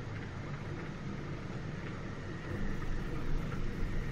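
OO gauge Drummond 700 class model locomotive and its vans running on the track: a steady running noise that grows louder about two-thirds of the way through as the train comes closer.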